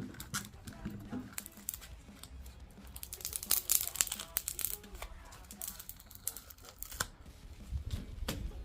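Adhesive tape being peeled off the plastic of a leaf blower nozzle, with ripping and crinkling in irregular bursts. The loudest stretch of tearing comes about three to four seconds in.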